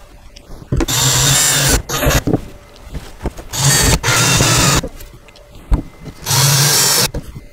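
Cordless drill driving screws into the changing table's shelves, in three short runs of about a second each, with a few light knocks between.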